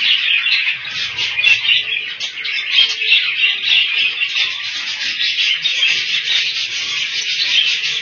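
A room full of caged budgerigars chirping and chattering all at once: a dense, unbroken high twittering made of many quick overlapping chirps.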